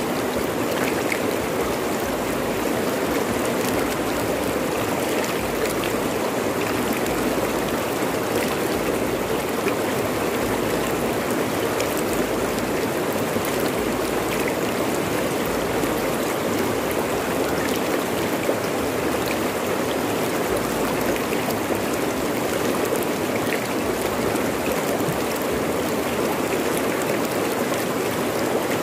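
Fast-flowing river rushing over rocks: a steady, even rush of water.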